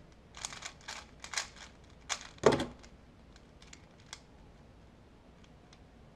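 Rubik's cube being turned by hand: a quick run of plastic clicks and clacks over the first three seconds, the loudest about two and a half seconds in, then a few faint scattered clicks.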